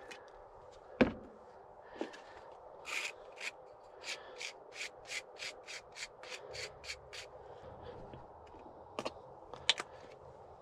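Wooden spreader scraping mayonnaise across toasted burger buns: a run of quick rasping strokes, about three a second, with a sharp knock about a second in and a few clicks near the end.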